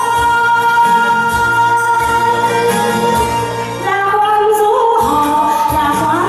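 Song with a singer holding one long high note over instrumental accompaniment, then moving into a new phrase about four seconds in.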